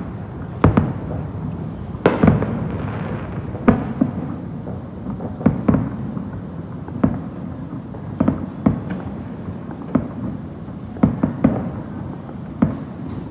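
Fireworks exploding: a string of sharp booms at uneven intervals, each with a rumbling echo, some coming in quick clusters of two or three.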